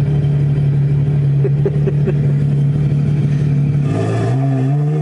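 Ferrari 812 Superfast's 6.5-litre V12 on a Novitec straight-piped exhaust, holding steady low revs, then about four seconds in dropping and climbing as the car accelerates.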